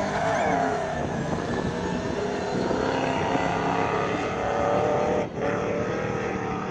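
Rally pickup truck's engine running hard as it speeds across loose sand, a steady engine note whose pitch bends about half a second in and that drops away briefly about five seconds in.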